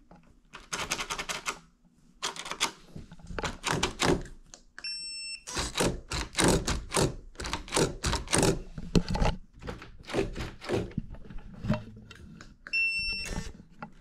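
Smart fingerprint lever lock on a door being worked: rapid mechanical clicking and clacking from the lever handle and latch, with a short electronic beep from the lock about five seconds in and again near the end.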